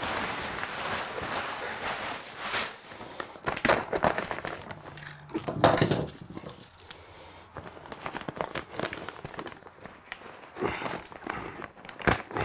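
Clear plastic wrapping on a roll of insulation blanket crinkling and rustling as it is handled and cut open, in irregular bursts with the loudest about halfway through.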